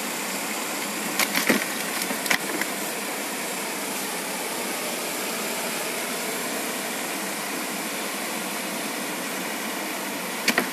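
Stream water rushing steadily over and through a bamboo fish trap, with a few sharp knocks on the bamboo about a second in and again a little later.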